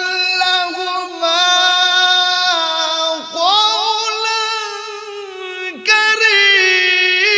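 A man singing a Bengali devotional gojol without instruments. He holds long, high drawn-out notes with wavering ornaments. The line breaks with a falling slide and starts again about three seconds in and near six seconds.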